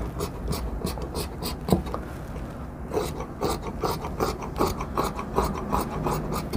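Large tailor's shears cutting through shirt cloth in a quick run of snips, about four a second, with a short pause about two seconds in.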